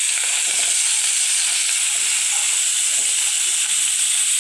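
Steady sizzling hiss of crumbled linguiça sausage frying in oil and a whole chicken breast browning in its juices in pans on the stove.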